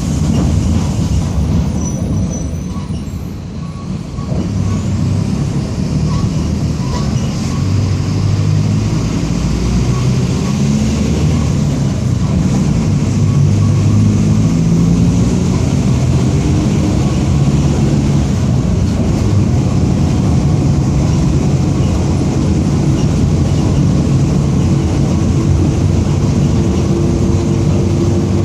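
Mercedes-Benz OF-1722M bus under way, its engine pulling and shifting in pitch, with the differential growling beneath it. The sound eases briefly about three seconds in, then builds again and holds strong.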